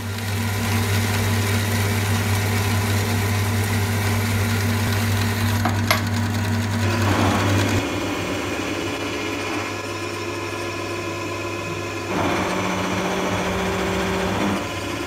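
A metal-cutting saw's motor running as it cuts a mild steel (ST37) bar, a steady hum with one sharp click about six seconds in. About seven seconds in it gives way to a milling machine face-milling the steel bar, a steady cutting hum that shifts in pitch about twelve seconds in.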